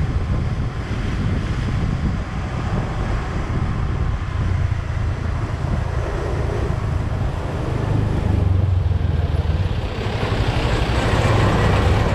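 Steady engine and road noise from a vehicle driving along a town street, with wind buffeting the microphone. The rushing noise grows louder about ten seconds in.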